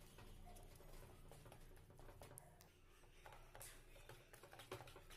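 Faint, irregular ticking and scraping of a wire whisk mixing pancake batter in a plastic bowl.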